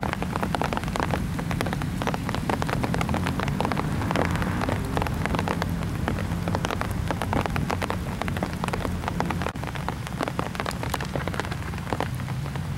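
Heavy summer-storm rain falling, with many sharp individual drops striking close by over a steady low rumble.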